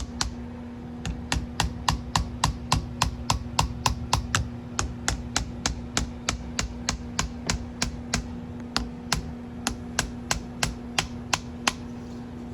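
A ratcheting mechanism clicking steadily, about three to four sharp clicks a second, which stop near the end. A steady low hum runs underneath.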